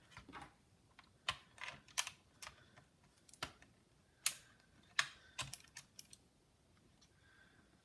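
Irregular sharp clicks and taps of hands handling a Dell Inspiron 1545 laptop's plastic parts and components during reassembly, loudest about four and five seconds in.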